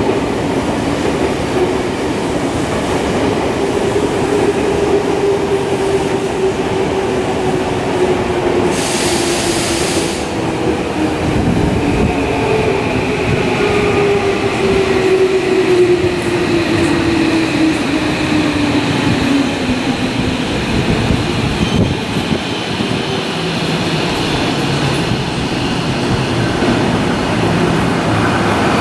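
Electric commuter train running close by as it slows, its motor whine falling steadily in pitch over about twenty seconds, with a short hiss about nine seconds in and a high wheel squeal from about halfway.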